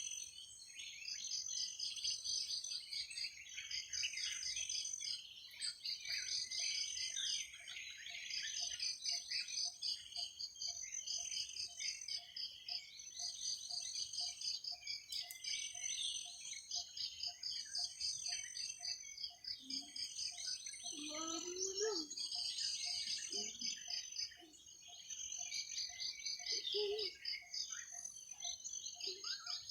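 Night-time forest chorus: insects trill in pulsed phrases that repeat about every second and a half, and birds chirp over them. From about seven seconds in, a lower note repeats about twice a second, and around twenty seconds in there is a brief lower sliding call.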